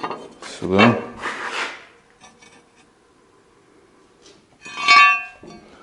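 Scraping rub of metal being handled, then a single loud, ringing metallic clank about five seconds in.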